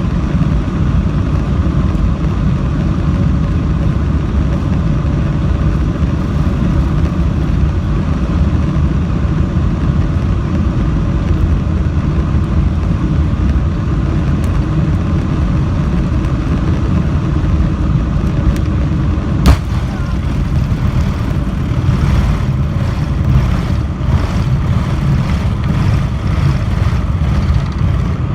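Boeing 747-400 during its take-off: a loud, steady rumble of engine and rolling noise with a faint steady tone above it. About two-thirds of the way through there is a single sharp crack, followed by a run of irregular knocks.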